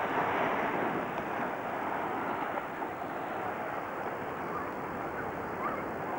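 Steady rushing of wind and surf on a camcorder microphone, an even hiss with no distinct events.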